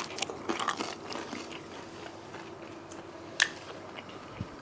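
People biting into and chewing crisp pan pizza with a crunchy, fried base: a few crackly crunches in the first second or so, then quieter chewing, with one more sharp crunch about three and a half seconds in.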